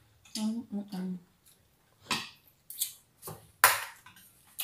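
Table sounds during a meal: a brief murmur of voice about half a second in, then several short, sharp clicks and clinks of utensils and dishes spaced over the next couple of seconds.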